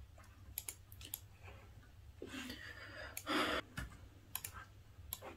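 Scattered mouse clicks and keystrokes on a laptop computer, with a couple of short breaths around the middle, the louder one a little past three seconds in, over a low steady hum.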